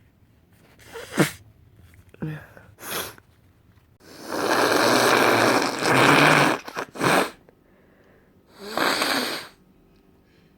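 A person with a head cold sniffles a few times, then blows their nose hard and wet in one long blow of about two and a half seconds. Two shorter blows follow.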